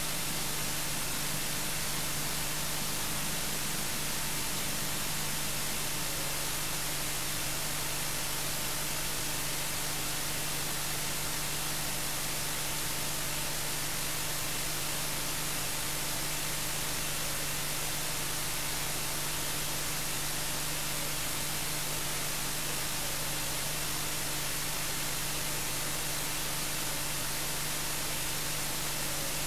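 Steady static hiss with a low electrical hum under it, unchanging throughout and with no other sound.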